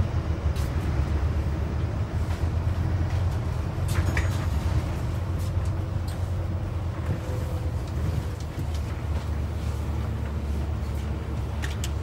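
Steady low rumble of a double-decker bus running along the street, heard from inside on the upper deck, with a few brief rattles or clicks about four seconds in and again near the end.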